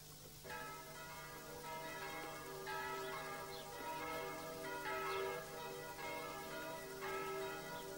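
Bells ringing, a new stroke about every second, each note ringing on into the next, over a faint steady low hum.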